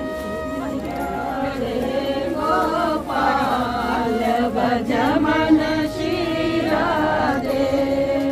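A group of voices singing a devotional chant together, with long held notes over a steady drone-like tone.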